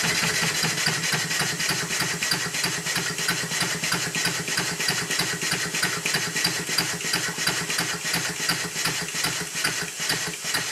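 Stuart Models No. 9 horizontal model steam engine running steadily on compressed air, with rapid, even exhaust beats and the clatter of its crank and valve gear.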